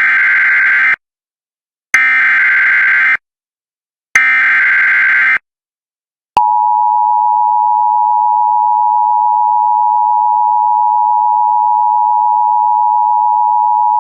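Emergency Alert System SAME header: three one-second screeching bursts of digital data about a second apart. About six seconds in comes the steady two-tone EAS attention signal (853 and 960 Hz together), which marks the start of a severe thunderstorm warning broadcast.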